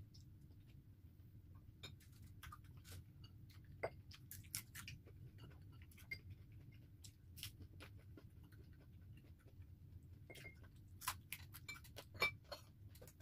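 Quiet eating sounds: scattered short clicks of chewing and of a spoon and fingers against the dishes, over a low steady hum.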